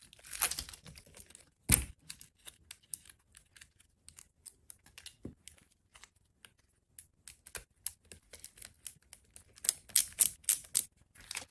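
Irregular small clicks and rustles of hands handling wire leads and plastic connectors, with a sharper click about two seconds in and a denser run of clicks near the end.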